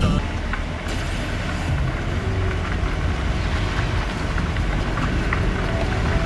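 A vehicle on the move: steady engine and road rumble.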